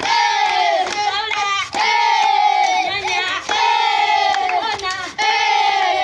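A group of children chanting and shouting loudly in unison. A long call falling in pitch repeats about every second and three quarters, with shorter shouts between.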